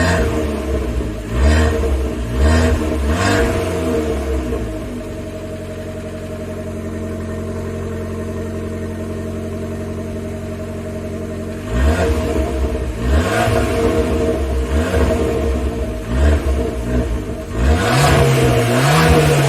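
Abarth 595's turbocharged 1.4-litre four-cylinder on its stock exhaust, revved in several short blips and then settling to a steady idle for about seven seconds. The blips start again about twelve seconds in, with a longer rev rising and falling near the end.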